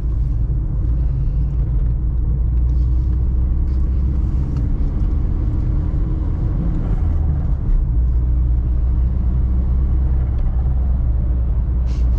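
Audi A3 1.8T's turbocharged four-cylinder engine running steadily under way with a deep, continuous low rumble of engine and road noise. There is no distinct turbo flutter or sharp event.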